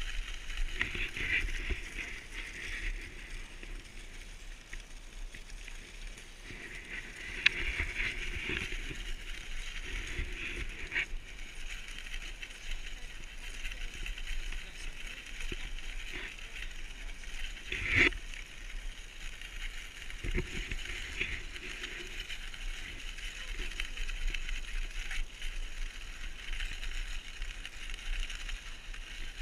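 Kicksled runners gliding and scraping over packed snow, a steady rushing hiss with a few short knocks and bumps, the loudest about eighteen seconds in.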